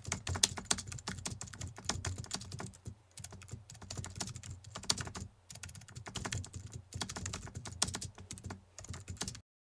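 Computer-keyboard typing sound effect: rapid runs of key clicks with brief pauses, cutting off suddenly near the end.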